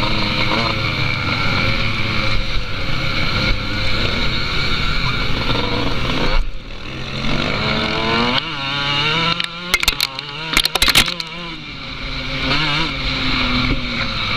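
Motorcycle engine running under way, its pitch rising as it revs up about seven to nine seconds in. A quick cluster of sharp knocks follows around the tenth second.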